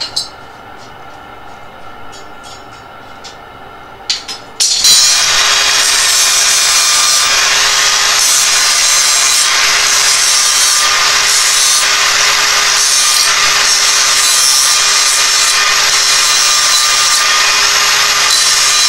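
A few clicks and knocks as a bar clamp is worked, then from about five seconds in a Milwaukee cordless angle grinder runs steadily, its disc grinding against rectangular steel tubing.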